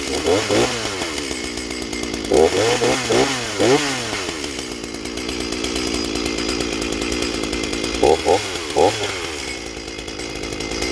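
Shindaiwa 488 two-stroke chainsaw engine running, with short blips of the throttle that send the revs up and back down in three groups: near the start, at about two and a half to four seconds, and at about eight seconds. It is freshly rebuilt and tuned to run rich ("running fat").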